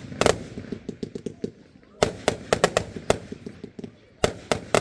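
Aerial fireworks bursting: groups of sharp bangs, one just after the start, a quick run of them about two seconds in and more near the end, with a steady patter of smaller crackling pops between.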